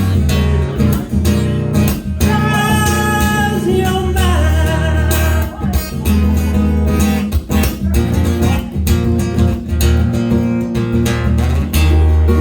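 Live band music: strummed guitar over deep sustained bass notes, with a voice singing a line about three seconds in.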